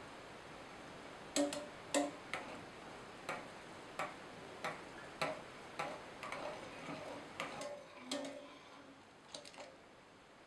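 Metal utensil clinking against the inside of a stainless steel saucepan as hot water is stirred into a whirlpool, more than a dozen uneven clinks about one to two a second, some leaving the pot ringing briefly, over a steady soft hiss of the water. The clinks thin out and stop near the end.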